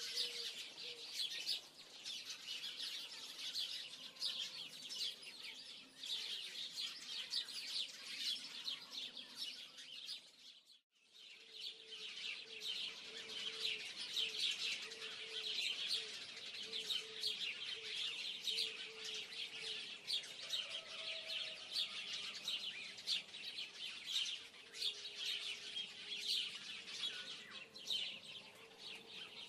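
Many small birds chirping rapidly and continuously in a dense chorus, with a brief break about eleven seconds in.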